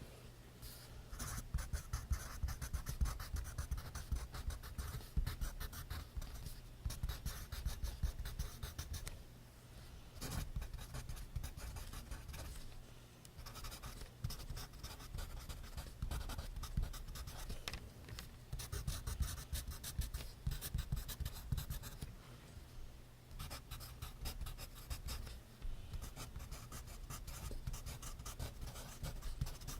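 Pencil writing on notebook paper: quick scratching strokes in spells, broken by short pauses about nine, thirteen and twenty-two seconds in.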